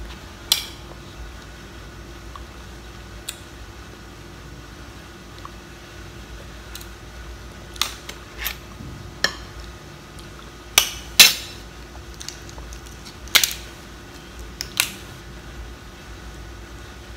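Scattered sharp clicks and clacks of hard crab-claw shell and tableware being handled while eating crab claws, about nine in all, the loudest about eleven seconds in.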